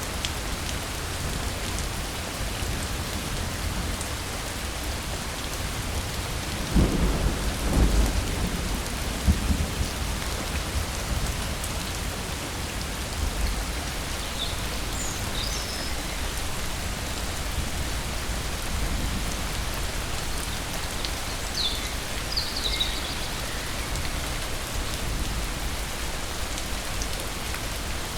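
Steady heavy rain falling, with a low roll of thunder rumbling for about three seconds, starting about seven seconds in. A few faint, short, high chirps come later.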